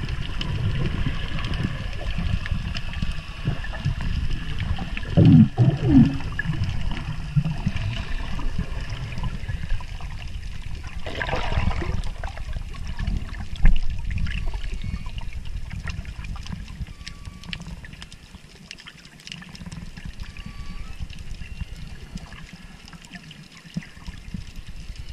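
Underwater water noise on a submerged GoPro's microphone: a low rumbling wash with gurgling, a louder swish about eleven seconds in, and quieter after about seventeen seconds.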